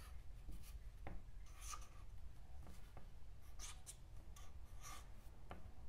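Marker pen writing on paper, faint short scratchy strokes coming a few at a time as numbers are drawn.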